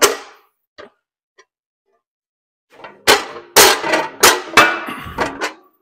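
Sheet aluminium clanking against the steel bending die of a hydraulic press as it is set in place: a light click, then about five sharp, ringing metallic knocks in the second half.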